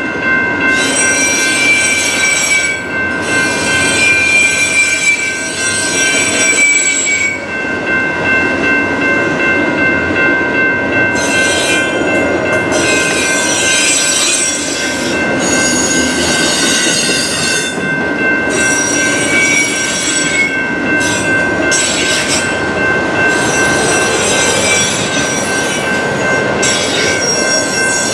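Freight train of autorack cars rolling past close by, a steady rumble of the cars with steel wheels squealing on and off, fading back for a few seconds about a third of the way in. Steady high tones ring throughout.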